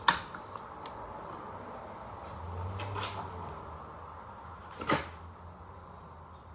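Three sharp knocks of hard objects: one at the start, one about three seconds in and one about five seconds in, over a faint low hum.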